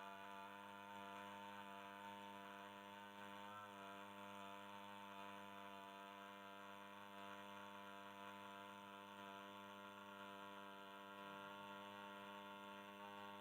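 Faint, steady drone of a long-held "aa" vowel tone, one low pitch rich in overtones, with a slight waver about four seconds in.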